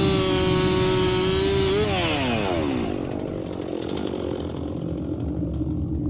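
Petrol chainsaw running at full throttle, cutting through a fallen tree trunk with a steady high engine note. About two seconds in the throttle is released: the pitch slides down and the saw settles to a low idle.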